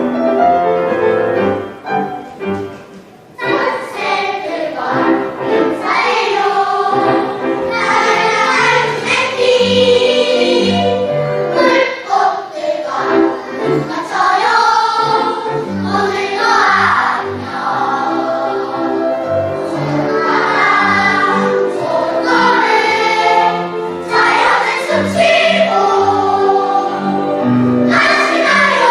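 A family choir of children and adults singing together with piano accompaniment. The piano plays on its own for the first few seconds before the voices come in.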